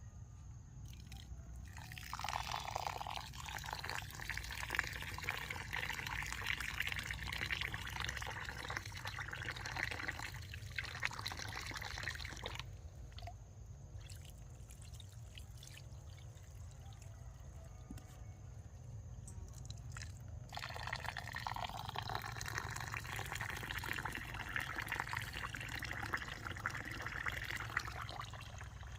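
Water pouring and splashing in two long spells: the first starts about two seconds in and lasts about ten seconds, the second starts about twenty seconds in.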